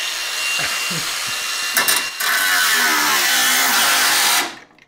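A Milwaukee cordless power tool running loud and steady in two long stretches, briefly broken about two seconds in; the second stretch is a little louder, and it stops near the end.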